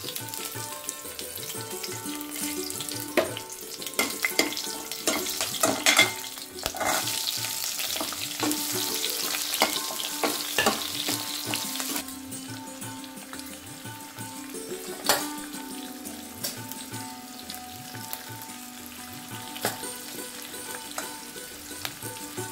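Spice seeds and onion pieces sizzling in hot oil in a steel kadai, with a steel ladle clinking and scraping against the pan as it stirs. The sizzle is strong in the first half and thins out suddenly about halfway through. Soft santoor background music plays underneath.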